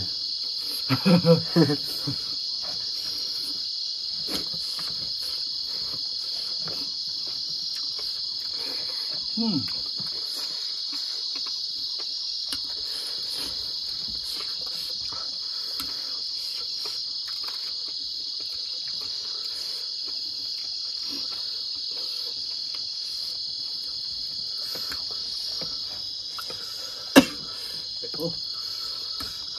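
Crickets chirring in a steady high-pitched drone, with brief vocal sounds about a second in and again near ten seconds, and one sharp click near the end.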